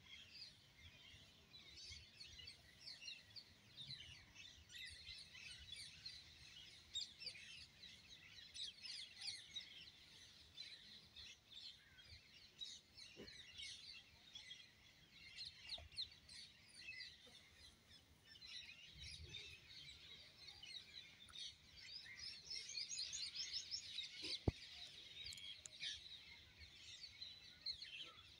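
Faint chirping and twittering of many small birds, continuous and busier in the last third, with a single sharp click near the end.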